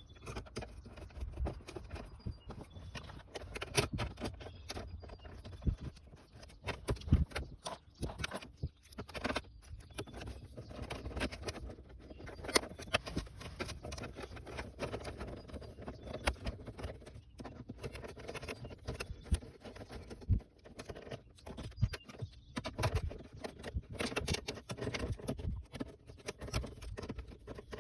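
Irregular light clicks, taps and knocks of hand work on a Jeep Grand Cherokee ZJ's plastic center console: the top piece being refitted and its 8-32 bolts driven into the nutserts.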